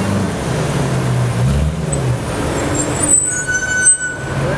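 BMW E92 M3's V8 running at low revs through its exhaust as the car pulls slowly past, the note rising a little a few times. About three seconds in the engine note fades, and a brief high steady squeal sounds for about a second.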